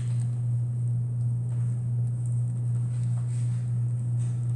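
A steady low hum with faint room noise beneath it, unchanging throughout.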